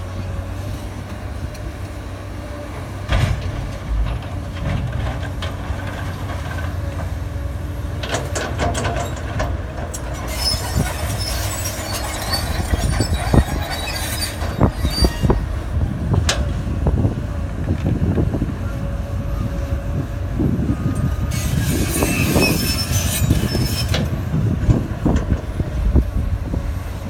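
A string of loaded gondola rail cars rolling slowly, with a steady low rumble, scattered clanks and knocks, and steel wheels squealing on the rails in two stretches, about ten and about twenty-one seconds in.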